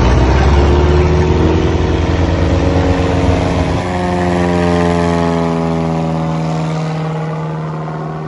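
Single-engine light propeller aircraft flying low past, its engine and propeller loud and rough at first. About four seconds in the sound changes to a clear drone whose pitch falls steadily as the plane passes and moves away, fading.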